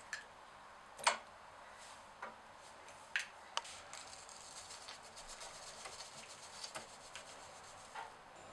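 A few sharp kitchen clicks and taps of containers and utensils, the loudest about a second in. Then a faint, fine rustle as powdered sugar is poured from a measuring jug onto almond flour in a mixing bowl.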